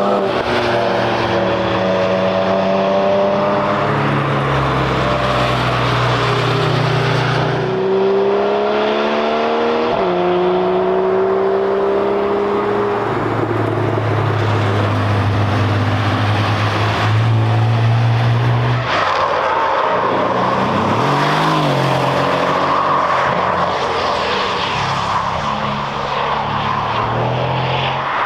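Cars at speed on a race track passing one after another, their engines revving up and down, with abrupt pitch drops at gear changes.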